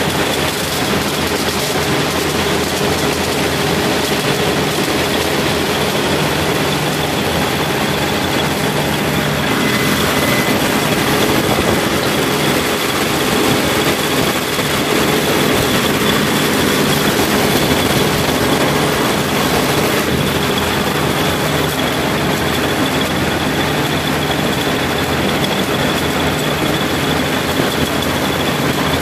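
Claas Dominator 78 combine harvester running steadily while harvesting maize: diesel engine and threshing machinery together, with a constant high whine over the machine noise.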